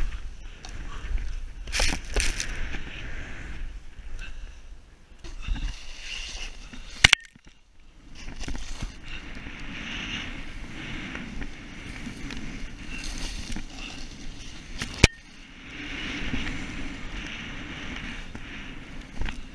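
Snow hissing and swishing under a rider descending through deep powder, swelling and fading in surges, with two sharp knocks, one about seven seconds in and another about fifteen.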